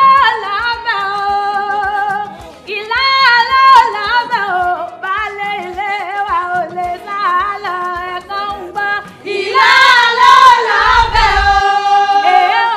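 A group of women singing a song together, with long held notes; the singing grows fuller and louder about nine seconds in.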